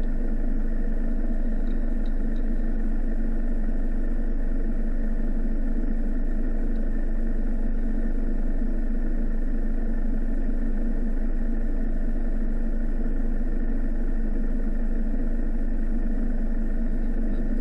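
Mitsubishi Delica's 2.8-litre four-cylinder turbo-diesel engine idling steadily, heard from inside the cab while the van stands still.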